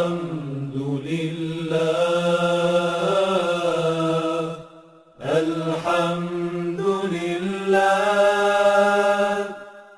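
Unaccompanied Islamic devotional chant: a single voice singing long held, slowly ornamented notes in two phrases, with a breath break about five seconds in.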